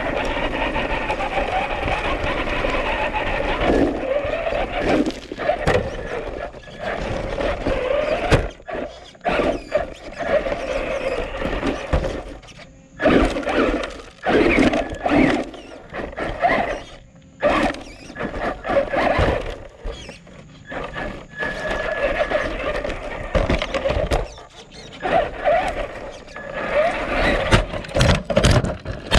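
Traxxas Rustler 4x4 RC car's electric motor and geared drivetrain whining in bursts as the throttle is worked, with sharp knocks as the chassis and tyres hit roots, and a flurry of loud knocks near the end as the car tumbles over. Heard from a camera mounted on the car itself.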